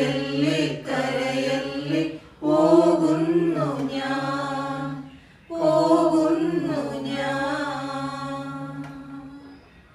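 A small mixed group of women and men singing a Malayalam hymn for the departed, in three phrases with short breaths between; the last phrase is held and fades away near the end as the song closes.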